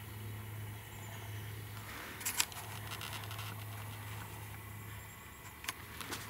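Handling clicks of a camera being swung and adjusted on a tripod: a short cluster of sharp clicks about two seconds in and two more single clicks near the end, over a low steady hum.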